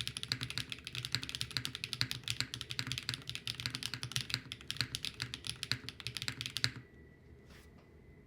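Fast typing on a mechanical keyboard with HMX Cthulhu linear switches, a clacky sound from their fiberglass-filled nylon bottom housings: a dense run of sharp key clacks that stops abruptly near the end, leaving a faint steady hum.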